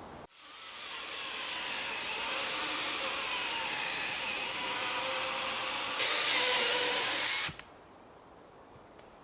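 A small electric motor whirring steadily. It builds up just after the start, gets louder about six seconds in, and cuts off suddenly about a second and a half later.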